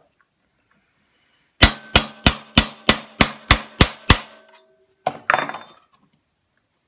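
Nine quick hammer strikes on a steel punch, about three or four a second, each with a short metallic ring, driving a retaining pin out through a Vepr 12 shotgun's rear sight block and dust cover as the pin nears the end of its travel. About a second after the last strike there is a brief clatter as the hammer is laid on the wooden bench.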